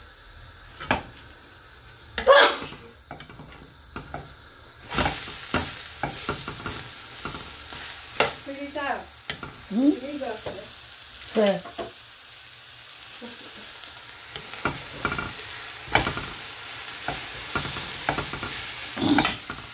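Bread slices frying in a nonstick pan with a light sizzle, while a metal spatula scrapes and knocks against the pan as it turns and presses them.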